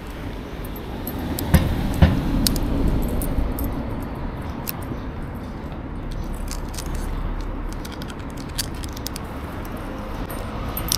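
Small metallic clicks and rattles of a fish grip and its coiled lanyard while a landed black sea bream is handled in a landing net, with two louder knocks about one and a half and two seconds in, over a low steady rumble.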